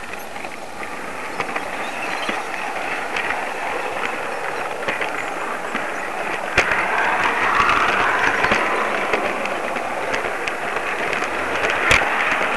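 Train running along the track: a steady rushing noise with scattered sharp clicks, growing louder about halfway through.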